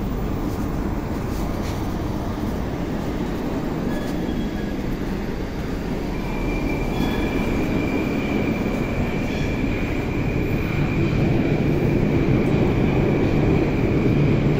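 Moscow Metro train sound: a steady low rumble that grows louder over the second half, with a thin high whine coming in about six seconds in.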